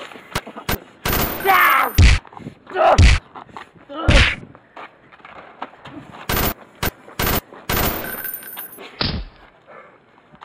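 Gunfire sound effects in single shots and short bursts, two clusters about five seconds apart, with a few short shouts in between.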